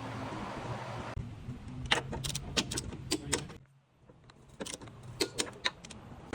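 Irregular metallic clicks and clinks of tools and mount hardware being handled during an engine mount replacement, over a low steady hum.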